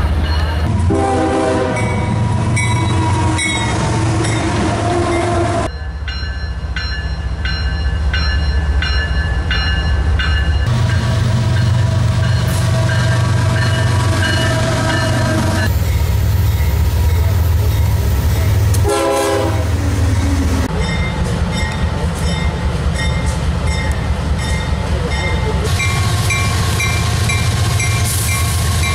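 CSX diesel freight locomotives passing at speed, sounding their air horns in long and short blasts over a deep engine and wheel rumble. Several short clips are cut together, so the horn chord changes suddenly a few times.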